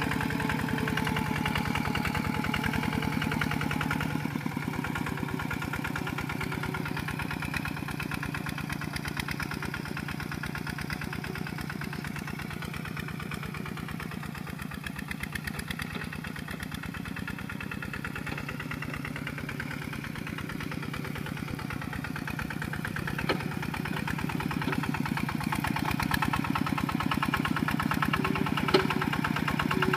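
Single-cylinder diesel engine of a Kubota RT140 Plus walking tractor chugging steadily as it works through wet paddy mud. It fades somewhat after about four seconds and grows louder again near the end.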